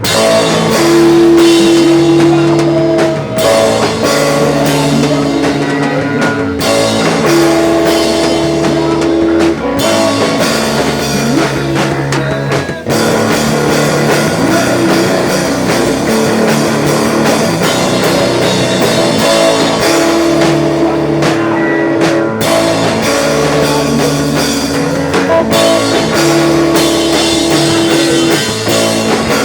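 Live rock band playing a song loudly, with guitars, bass and a drum kit, kicking in all at once.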